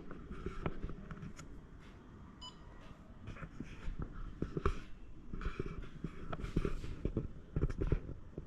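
A single short electronic beep from an air fryer's control panel about two and a half seconds in, among irregular knocks and rustles of handling.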